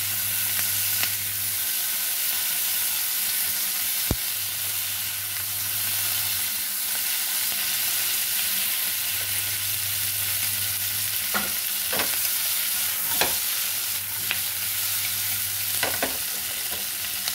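Paneer cubes, capsicum and onion frying in butter and oil in a pan, with a steady sizzle as they are stirred. There are a few sharp clicks from the spatula against the pan.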